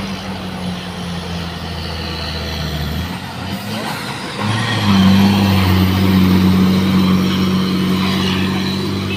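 Diesel engine of a Mercedes-Benz tractor unit hauling a tank container, labouring up a hill climb. Its drone falls away briefly about three seconds in, then comes back louder and steady as the truck passes close by.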